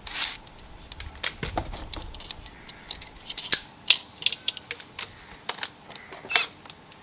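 Light metallic clinks and taps of a steel bolt being fed down into the cylinder head of a Honda Dash four-stroke engine, with a few sharper clicks as metal knocks against metal.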